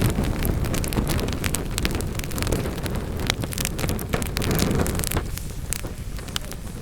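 Wood fire in a fireplace crackling, with frequent sharp pops over a steady low rumble of the flames. The rumble eases after about five seconds while the crackling goes on.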